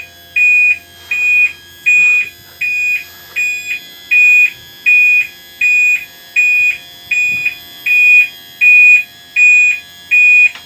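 Warning buzzer of a boat's powered engine hatch, beeping steadily at about two high-pitched beeps a second while the hatch stands raised.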